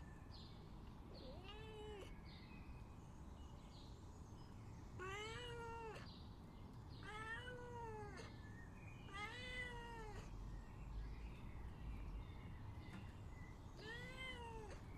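Domestic cat meowing repeatedly, five drawn-out meows that each rise and fall in pitch, with a longer pause before the last one. It is a cat asking to be let out.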